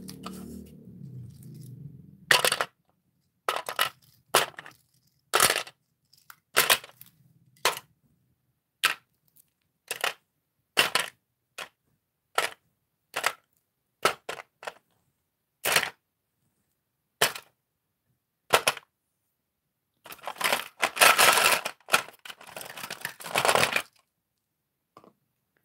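Hard plastic toy animal and dinosaur figures clacking one at a time into a hard plastic tray, about twenty sharp knocks roughly a second apart. Near the end comes a few seconds of quicker clattering as the pile is rummaged through.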